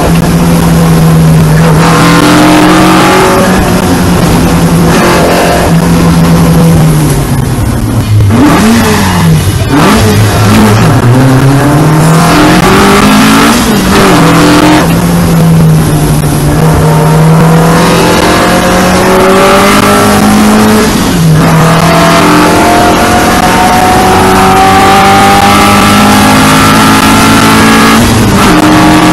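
Onboard sound of a 2-litre Alfa Romeo Giulia GTJ race car's twin-cam four-cylinder engine on a flying lap. The revs fall with blips on the downshifts for a slow corner about a third of the way in. Then it pulls hard up through the gears, with an upshift about two-thirds in and another near the end.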